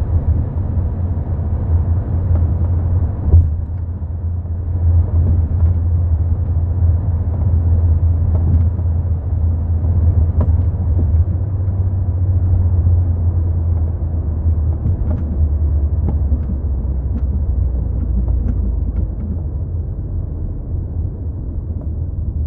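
Steady low rumble of a Mk4 Volkswagen Golf being driven, with scattered short knocks from the rear, the loudest about three seconds in; the knocking is the sign of a bad rear shock absorber.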